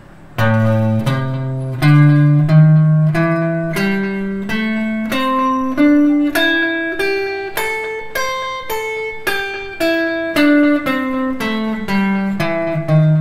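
A blues scale in A played one picked note at a time on a Squier Stratocaster electric guitar, about two notes a second, climbing from the low A for about eight seconds and then stepping back down to it near the end.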